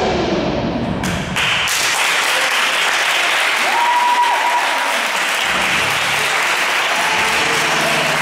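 Rock backing music fading out, then about a second in a group applauding, with one short high-pitched call about four seconds in.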